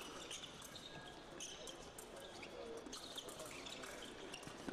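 Faint sports-hall ambience with scattered short squeaks and taps, typical of fencers' shoes working on the piste during a bout.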